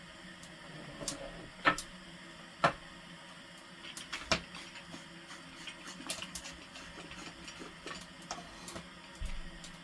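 Firewood burning in a wood stove, crackling with irregular sharp pops over a faint steady hiss.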